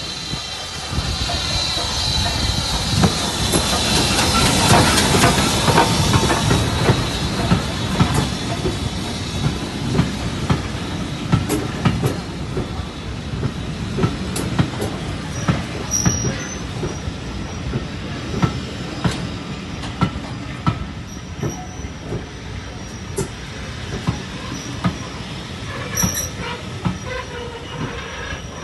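BR Standard Class 4 2-6-4 tank steam locomotive 80151 arriving with a hiss of steam, then its coaches rolling slowly past, wheels clicking over the rail joints about once a second. Two short high squeals as the train slows, one near the middle and one near the end.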